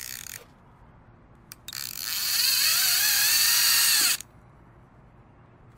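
A brief burst, a single click, then a loud mechanical ratcheting buzz lasting about two and a half seconds, its pitch wavering and rising before it stops abruptly.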